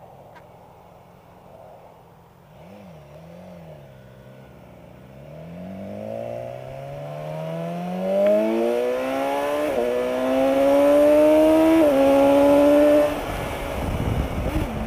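Kawasaki Versys motorcycle engine idling, blipped twice, then pulling away under hard acceleration, hard enough to lift the front wheel. Its pitch climbs steadily, dips at two upshifts, and the throttle eases off near the end.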